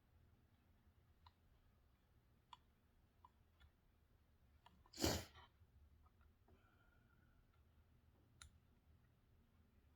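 Near silence with faint, sparse clicks of tweezers and tools on a circuit board during desoldering, and one short breathy puff about five seconds in.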